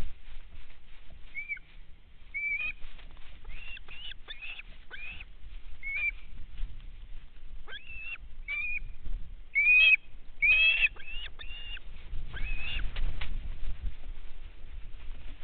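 Birds calling: a string of short, high chirps and whistled notes, some sliding down in pitch, coming a few times a second. A low rumble comes in about two-thirds of the way through.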